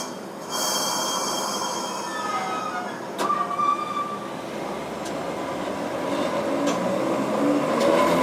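Sapporo streetcar running on its rails, steel wheels squealing for a couple of seconds in the middle, with a knock a little past three seconds in. Near the end a whine rises steadily in pitch and grows louder as the tram picks up speed.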